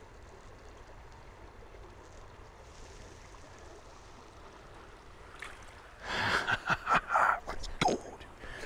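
Faint creek water, then about six seconds in a couple of seconds of loud, irregular splashing as a brown trout is let go from a hand in shallow water.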